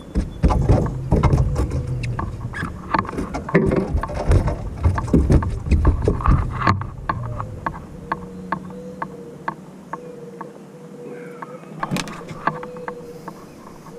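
An angler fights a hooked bass from a boat deck. For the first several seconds there are heavy thumps and bumps along with a string of sharp ticks. After that the ticking goes on more quietly over a faint steady hum, with a loud knock near the end as the fish is landed.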